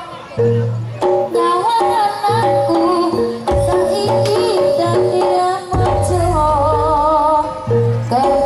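Jaranan music from an East Javanese gamelan ensemble: a woman sings a wavering, ornamented melody over repeated drum strokes and percussion.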